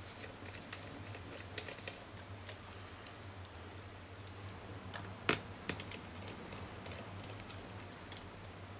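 Scattered light clicks and ticks of a small screwdriver turning tiny screws into a netbook's plastic bottom cover, with one sharper click about five seconds in, over a low steady hum.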